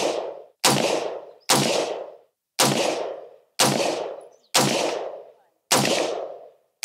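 Semi-automatic AR-15 rifle with a 16-inch barrel firing 5.56 rounds in slow aimed fire: about seven sharp shots roughly a second apart, each ringing out for about half a second.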